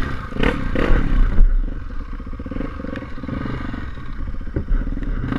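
Electronic music that cuts off about a second and a half in, followed by an engine running steadily with a fast, even pulse.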